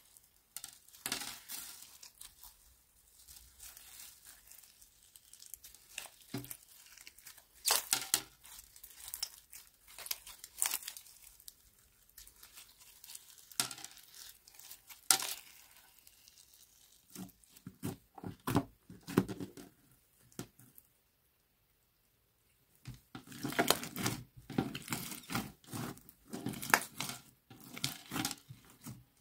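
Glitter slime being squeezed, folded and stretched by hand, giving sticky crackling and popping sounds in irregular bursts. The sounds stop for a moment about two-thirds of the way through, then return thicker.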